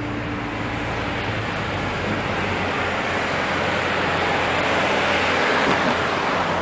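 A car approaching and passing on a highway: the rushing noise of its tyres and engine swells steadily and is loudest near the end.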